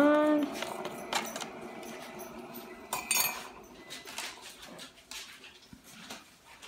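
Dishes and utensils knocking and clinking in a kitchen, a few scattered clinks and knocks, with a short rising whine at the very start.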